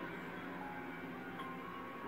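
Quiet film-score music with long held notes, a new higher note coming in a little past halfway.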